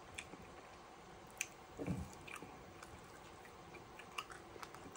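Wet mouth sounds of a person chewing food close to the microphone: faint scattered clicks and smacks, with one brief low sound about two seconds in.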